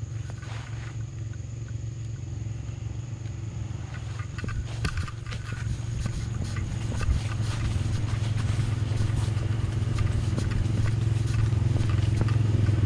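ATV engine running steadily, growing gradually louder, with a few short knocks about four to five seconds in.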